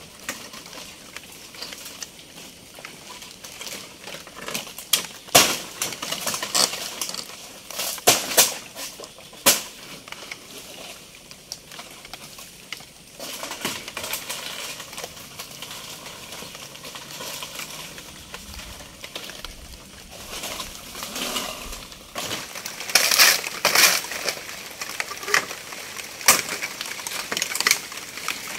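Irregular sharp snaps and crackles of forest undergrowth, twigs and leaves breaking as someone moves through or cuts vegetation, over a steady faint hiss. The loudest cracks come in clusters a few seconds in and again near the end.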